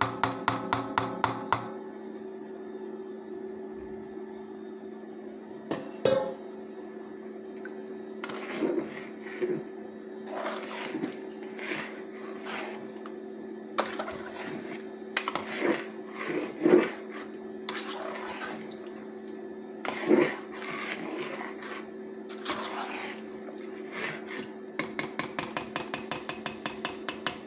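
A large metal spoon scraping and knocking inside an aluminium pot as chana dal and turnip pieces are stirred into the gravy, with quick runs of rapid taps at the start and near the end. A steady hum runs underneath.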